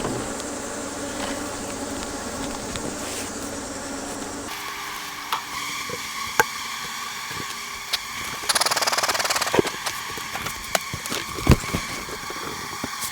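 Swarm of honey bees buzzing around an opened hive, a steady hum, with agitated bees in no mood to be messed with. Scattered clicks and knocks throughout, and a hissing burst of about a second past the middle.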